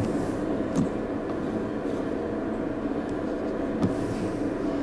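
Steady low machine hum with a few faint clicks.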